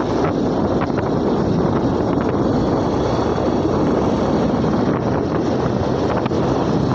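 Steady wind rush on the microphone from riding pillion on a moving motorbike, with the bike's engine and tyre noise blended in.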